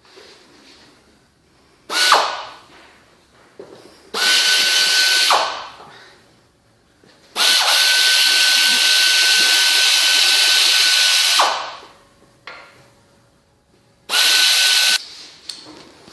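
A power tool runs in four bursts, the longest about four seconds, each a steady high whine over a hiss. It is tightening fasteners during reassembly after a CV joint replacement.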